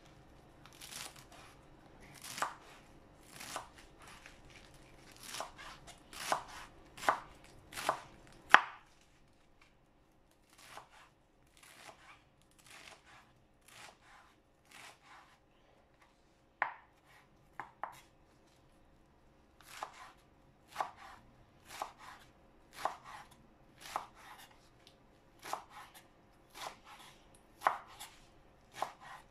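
Chef's knife chopping bunched spinach on a bamboo cutting board: a run of sharp knife strikes on the board, about one to two a second, softer for several seconds in the middle.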